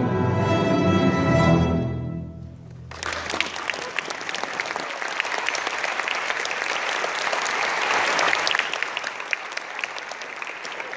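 A middle school string orchestra holds its final chord, which dies away about two seconds in; a second later the audience breaks into steady applause.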